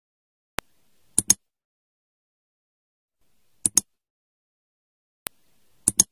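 Mouse-click sound effects over dead silence: short sharp clicks, some single and some in quick pairs, about five times.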